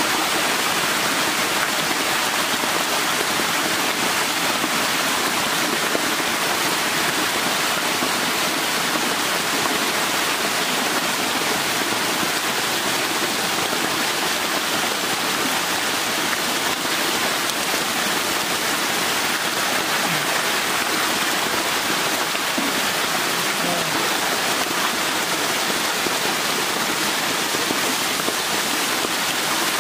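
Steady rushing and splashing of water jets spraying from pipes into a concrete fish tank, with crowded hybrid magur catfish churning the water's surface.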